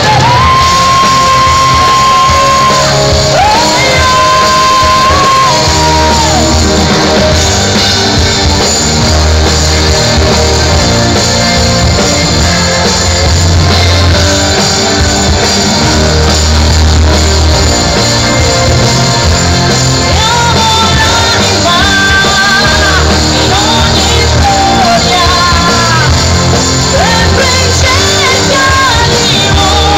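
Live rock band playing loud, with electric guitars, heavy bass, drums and a singer. Long held high notes come in the first few seconds, and the melody line returns in the second half.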